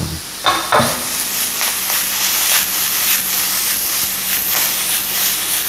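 Diced potatoes, sausage and vegetables sizzling with a steady hiss in a hot non-stick frying pan over a gas flame. The pan is tossed over and over, and the food swishes and lands in short repeated strokes about two to three times a second.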